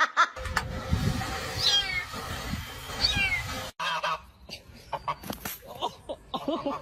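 An animal's calls: two short, high, falling cries over a low rumbling noise, then a sudden cut and a few shorter scattered sounds.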